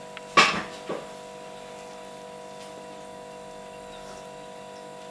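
A steady hum made of several thin tones. A short, loud, noisy sound comes about half a second in, and a smaller one about a second in.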